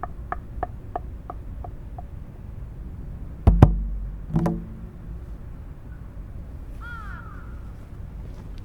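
Tombak (Persian goblet drum) played with the fingers: light taps about three a second die away over the first two seconds, then two deep bass strokes ring out about halfway through. A crow caws once near the end over a steady low rumble.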